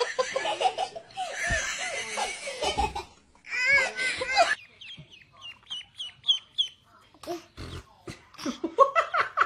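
Laughter, then ducklings peeping in a run of short, high, falling chirps, several a second, with more laughing and squealing near the end.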